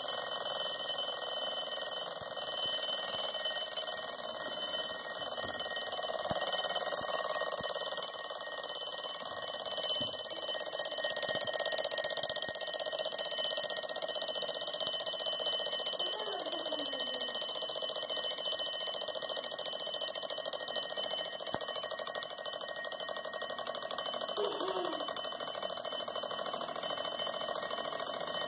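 Old mechanical bell alarm clock ringing without a break, its bell giving a steady, high, metallic ring.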